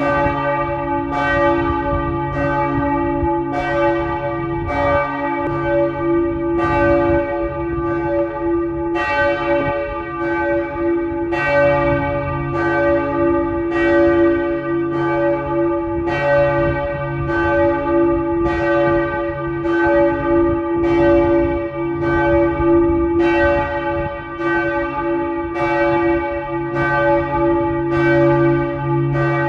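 Church tower bells pealing: several bells strike over and over, about once a second in overlapping rounds, over a steady hum of their lingering low tones.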